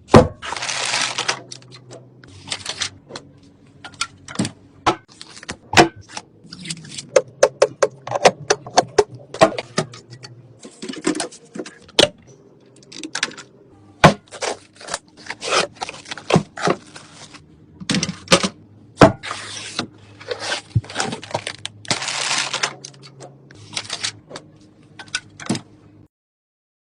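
Computer parts being handled and fitted during a PC build: a series of sharp clicks, snaps and knocks of plastic and metal parts, with short scraping, rustling stretches. A low hum underneath changes abruptly several times between cut-together shots.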